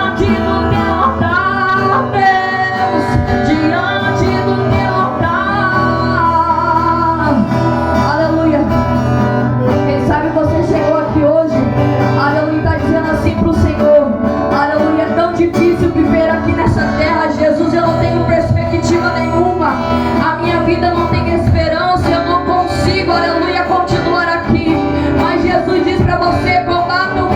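Worship music: a woman singing a slow, wavering melody over guitar accompaniment with a steady low bass.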